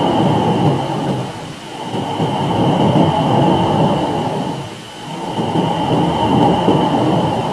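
Space-science data turned into sound: electromagnetic waves where Earth's magnetic field meets the solar wind plasma at the magnetopause, played back as audio. It is a dense, rough noise that swells and fades twice, with a faint steady high tone throughout.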